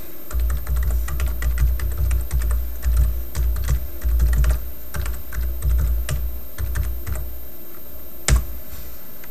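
Typing on a computer keyboard: a quick run of keystrokes with low thuds for about seven seconds, then one louder key press a little past eight seconds in.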